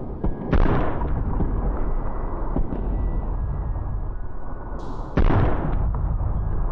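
Battle sound effects from a clip played back for an earbud latency test: a steady rumble with scattered sharp cracks. Two heavy booms stand out, one about half a second in and one near the end.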